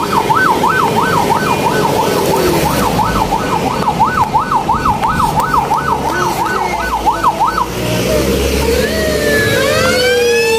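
Fire truck siren in a fast warble, about three sweeps a second. About eight seconds in it changes to slower rising and falling wails as the truck draws close, with its engine rumbling underneath.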